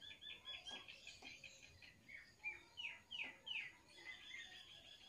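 Small birds chirping: a quick run of short, high chirps, then three or four downward-sliding calls about halfway through.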